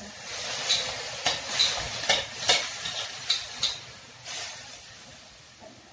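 Liquid poured into a hot wok of frying onions and pork sizzles, and a metal spatula scrapes and knocks against the wok in about half a dozen sharp strokes over the hiss of the frying, which fades toward the end.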